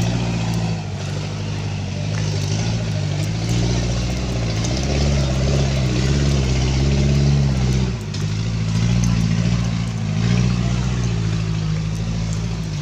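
Motor vehicle engine running while driving, its note rising and falling, dipping briefly about a second in and again about eight seconds in, over a steady noisy rush.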